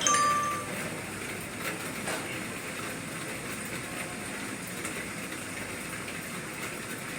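A short electronic beep right at the start, then a steady airy hiss of a blower or fan with a few faint ticks.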